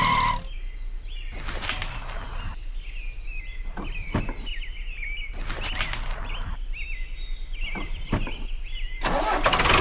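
Small birds chirping steadily in the background, with a few sharp plastic clicks and taps, mostly in close pairs, as toy chili peppers are set down into a plastic toy trailer.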